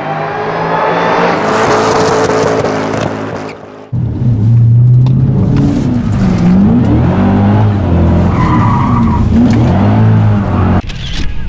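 Ford Mustang drifting: the engine revs up under a rising tyre screech for the first few seconds. After a sudden break about four seconds in, a deep engine note rises and falls over and over with the throttle.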